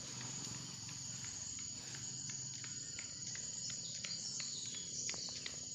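Steady high-pitched insect chorus of crickets or cicadas, with a few short ticks in the second half.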